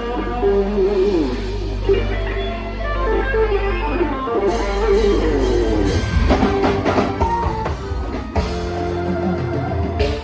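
Live band playing an instrumental opening: an electric guitar lead melody, its tones from a Line 6 HX Stomp, over a sustained low bass. The drum kit comes in about four and a half seconds in.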